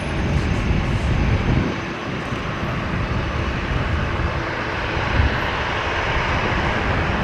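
Lockheed CC-130J-30 Hercules's four turboprop engines at takeoff power: a steady, full rush of engine and propeller noise as it departs.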